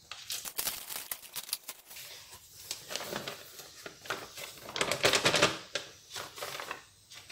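Plastic bag crinkling and rustling in irregular spurts as rice flour is shaken out of it into a plastic basin.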